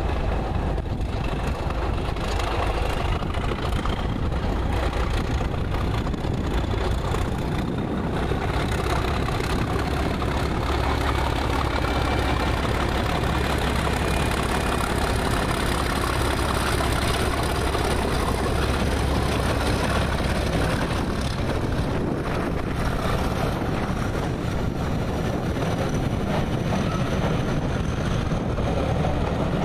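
Class 37 diesel locomotive's English Electric V12 engine running under power as it pulls away with a train, a steady low drone that is loudest as the locomotive passes close by. Near the end its coaches roll past.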